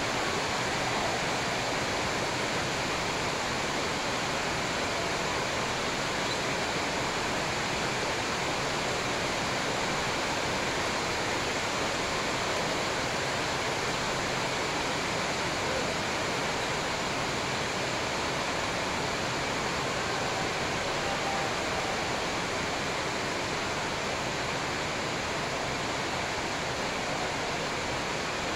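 A steady, even rushing hiss with no distinct hits or voices standing out of it.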